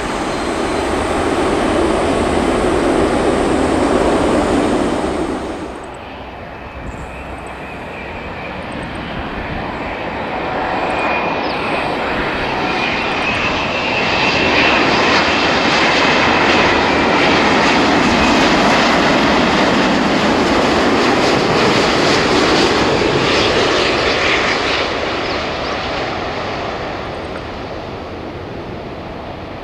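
Jet engines of an Airbus A380 on the runway, loud for about five seconds, then cut off abruptly. Then the jet engines of a Boeing 787 on final approach: a steady noise that swells as it nears, holds for about ten seconds, and eases off as it flares to land near the end.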